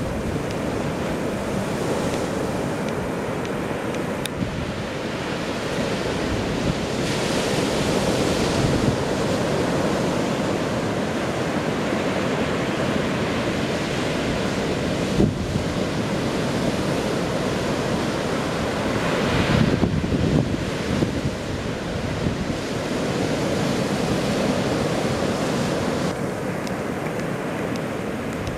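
Ocean surf on a sandy beach: a continuous wash of waves rolling in, with louder surges as breakers come in, twice.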